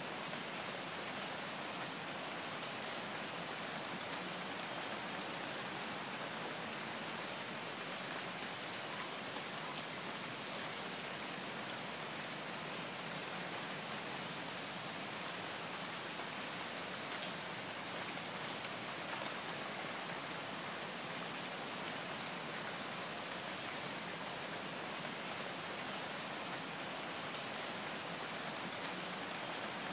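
Steady rain sound, an even hiss without rhythm.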